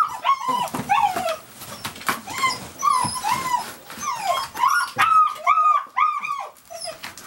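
Puppies whining and yipping in quick, short, high calls while tussling over a chew, with a run of louder arching whines about five to six and a half seconds in and occasional sharp clicks.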